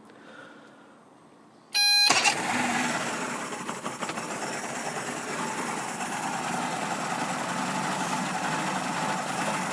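1990 Mercury 100 hp 2+2 two-stroke outboard started: a short beep from the warning horn about two seconds in, then the engine catches and runs on at idle. It idles a little rough, which the owner puts down to either a fuel or a timing issue, though he understands these engines do idle rough.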